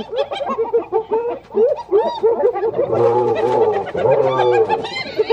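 A group of spotted hyenas calling at once: rapid, overlapping high calls that rise and fall in pitch, thickening between about three and four and a half seconds in, with low growling underneath. It is the sound of the clan squabbling as males mob a female.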